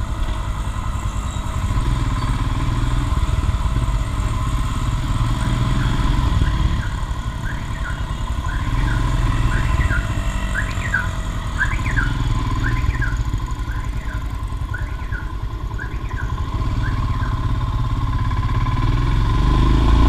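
Royal Enfield Himalayan's single-cylinder engine running with a steady low rumble. From about five seconds in until about seventeen seconds, a repeating electronic chirp sounds over it in quick pairs, about one pair a second, like a vehicle alarm.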